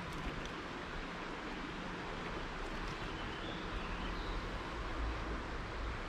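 Steady rush of flowing creek water, with a low wind rumble on the microphone that grows stronger from about four seconds in.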